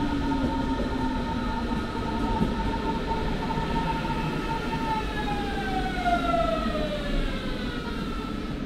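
Berlin S-Bahn electric train pulling in. Its motors give a steady whine of several tones, which falls in pitch over the last few seconds as the train brakes, over a low running rumble.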